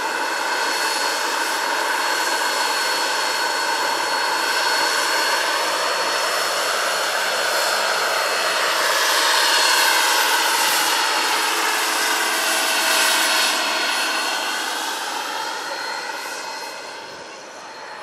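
Turbine-powered Hughes 500E scale model helicopter flying past: a steady high turbine whine over rushing rotor noise. It grows louder toward the middle and fades near the end as the helicopter moves away.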